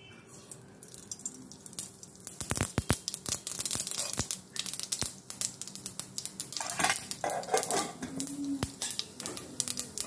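Spice seeds sizzling and popping in hot oil in a metal frying pan, the sizzle building after about two seconds, with a spoon and the pan clinking and knocking against each other, a quick cluster of knocks near the start of the sizzle.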